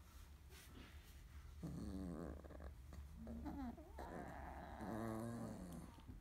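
Sleeping 30-day-old Labrador puppies snoring in their sleep: three drawn-out pitched snores, starting about one and a half seconds in, the middle one short and wavering, the last the longest.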